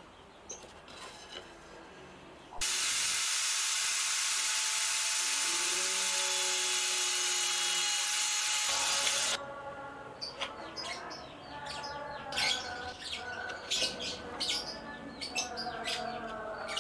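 Electric drill mounted in a homemade drill-press stand, running and drilling into plywood for about seven seconds, starting a few seconds in and stopping abruptly. Afterwards, quieter birds chirping.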